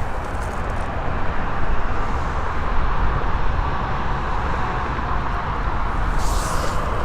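Steady noise of freeway traffic passing below, with a brief higher hiss near the end.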